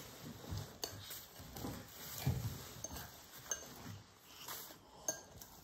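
A fork mashing ripe bananas in a bowl: irregular soft strokes with a few light clinks of the fork against the bowl.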